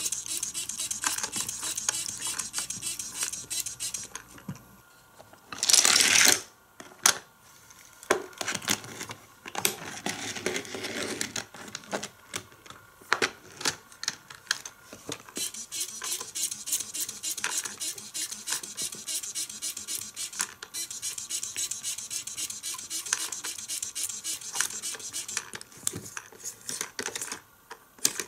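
Rapid plastic clicking and rattling from a Hot Wheels Color Blaster toy playset's spinning car platform as it is worked, with a loud, short rushing burst about six seconds in.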